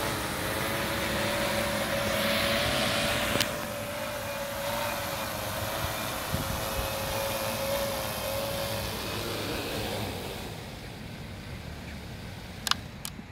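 Hexacopter drone's electric motors and propellers humming steadily as it comes down to land. The hum dies away about nine to ten seconds in, once the drone is on the ground and the motors wind down. A sharp click comes near the end.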